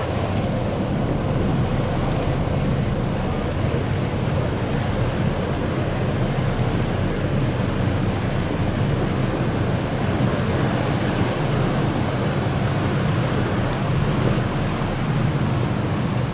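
Boat under way on open water: a steady low engine drone under the rush of water along the hull, with wind buffeting the microphone.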